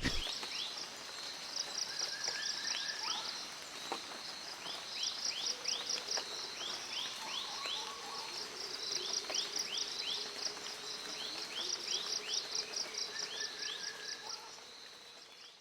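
Insects chirping in rapid pulsed trains that come and go in long runs, mixed with groups of short, falling whistle-like calls. The sound fades out near the end.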